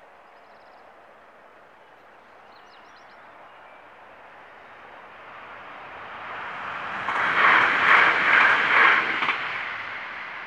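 A train passing at speed over the level crossing. A rushing rail noise builds from about six seconds in, is loudest for about two seconds in three surges, then fades.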